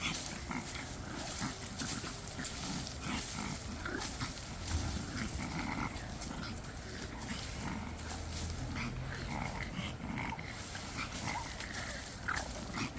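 Sounds of a Pomeranian close by, among many short rustles and clicks.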